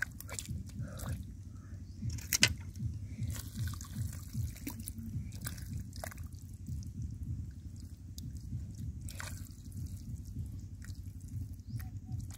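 Water dripping and sloshing, with small splashes scattered through.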